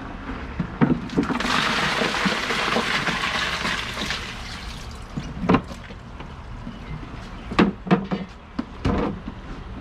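Ice poured into a cooler over blue crabs to chill and numb them before steaming, a steady clattering hiss for about four seconds. It is followed by a few sharp knocks.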